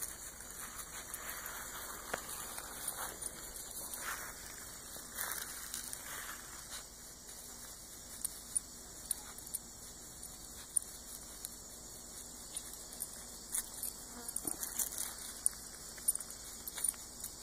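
Faint outdoor ambience of insects chirping high and steady, with scattered light rustles and ticks from a puppy moving through the grass.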